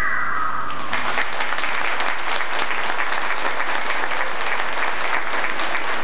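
The last of the music fades out in the first second, then an audience applauds: a dense, steady clapping.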